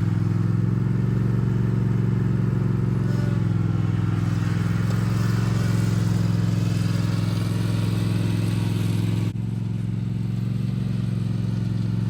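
Zero-turn lawn mower engine running steadily. The sound drops a little and its higher hiss fades about nine seconds in.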